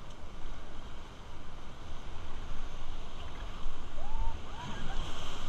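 Whitewater rushing around an inflatable raft, a steady loud hiss of churning river water over a low wind rumble on the microphone. A few brief rising-and-falling cries come near the end.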